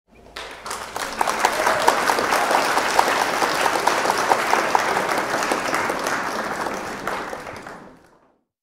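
A large crowd applauding, dense clapping that fades in at the start and fades out about eight seconds in.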